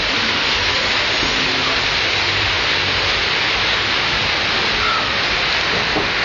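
Heavy rain falling steadily on a courtyard and roofs: a loud, even hiss.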